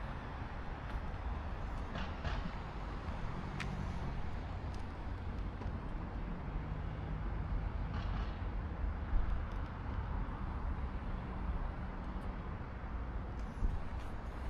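Steady low rumble of road traffic, with a few light clicks.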